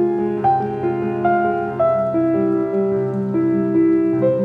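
Slow, gentle piano music: a single melody moving about one note a second over held low notes.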